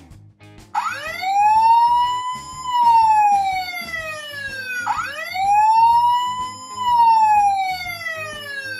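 My First Tonka Wobble Wheels toy police car playing its electronic police siren sound: two slow wails, each rising, holding briefly and falling, starting just under a second in.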